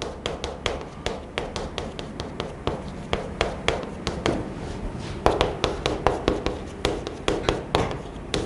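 Chalk writing on a chalkboard: a quick, uneven run of sharp taps as the chalk strikes the board with each stroke.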